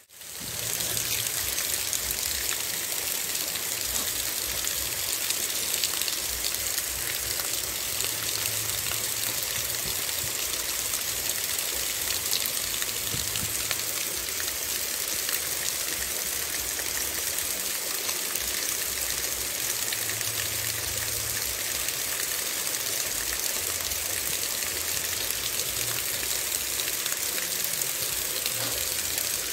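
Water spilling over a small stepped concrete weir into a shallow stream, a steady rushing sound.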